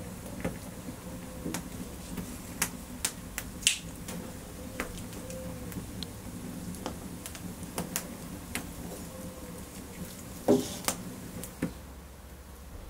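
Irregular sharp clicks and light knocks, a few seconds apart, over a steady low background, with one louder knock about ten and a half seconds in.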